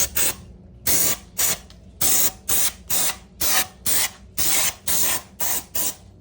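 About a dozen short hissing sprays, roughly two a second, blasting gunk and residue out of a Honda D16 engine block's cylinders.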